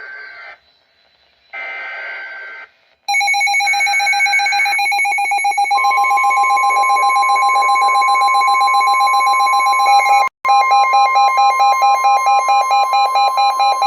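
NOAA Weather Radio SAME header data bursts, short screeching chirps about a second apart, followed by a weather radio's alert alarm beeping rapidly. About six seconds in, the steady NWS warning alarm tone joins the beeping. The sequence signals an incoming warning, here a tornado warning.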